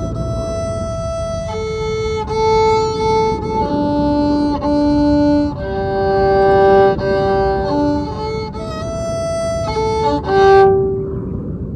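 Violin bowed in a slow melody of held notes, most likely the repaired junk violin being played.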